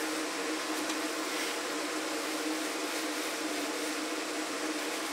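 Steady mechanical hum of a running machine: a low drone of a few held tones over an even hiss, unchanging throughout.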